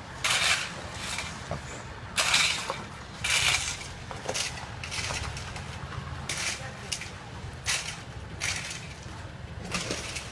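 Road workers' shovels scraping and crunching on wet asphalt while patching the road: short, irregular strokes about once a second over a steady low rumble.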